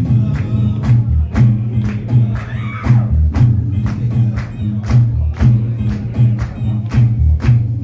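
Live rock band playing: drums keep a steady beat of about four hits a second over a loud bass line and electric guitar.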